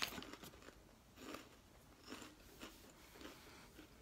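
Faint, irregular crunching and chewing of Vegan Rob's Brussels Sprout Puffs, a crunchy puffed snack, with a snack bag rustling briefly at the start.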